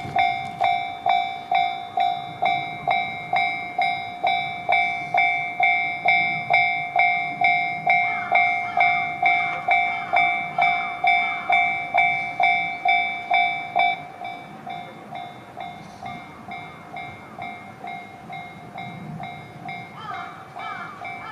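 Japanese level-crossing warning bell ringing about twice a second as the crossing activates, starting suddenly; about fourteen seconds in it drops to a quieter level and keeps ringing.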